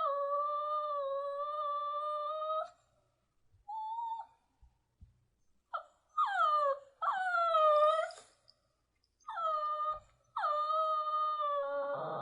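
Shih Tzu puppy whining: a run of high whines, the first held steady for over two seconds, the later ones sliding down in pitch.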